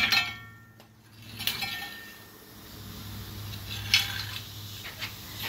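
Sharp metal clanks and clinks, three separate knocks, some with a short ringing tail, as steel parts and tools knock against a 7.3L gas V8 being worked free of its mounts and brackets. A steady low hum runs underneath.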